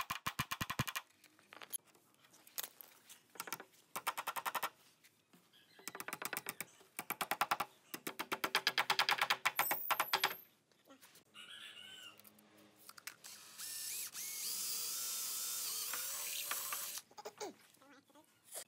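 Claw hammer tapping at the steel eye bolts and chain fittings of a wooden swing chair, in several runs of quick strikes about ten a second, the longest lasting a few seconds and growing louder. A steady noise follows for about three seconds near the end.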